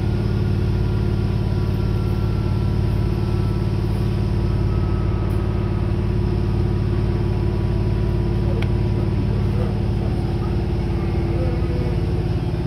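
Diesel railcar running steadily under way, with a deep engine hum over the rumble of the wheels on the track, heard from on board.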